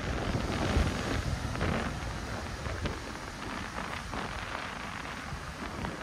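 Ocean surf breaking and washing in over a rocky beach, a steady rushing hiss, with wind buffeting the microphone in low rumbling gusts.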